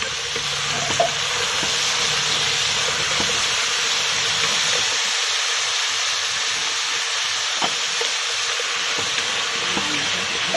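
Green beans sizzling steadily as they are stir-fried in hot oil in a metal pot, stirred with a few faint knocks of the utensil against the pot.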